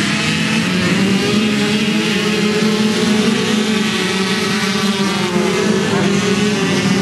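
Several 85cc flat-track motorcycles racing together at high revs, their overlapping engine notes wavering in pitch as the riders work the throttle.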